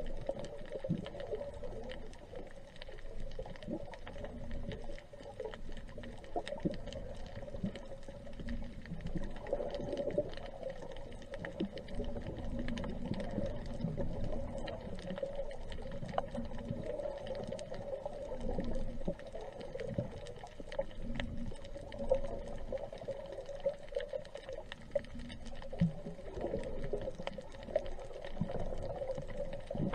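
Underwater ambience heard by a submerged camera: a steady, muffled water wash with a low hum running through it and many scattered faint clicks and crackles.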